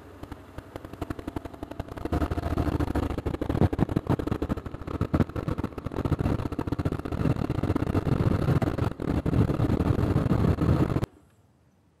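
A motor vehicle's engine running, with rough, uneven noise. It gets much louder about two seconds in and cuts off suddenly near the end.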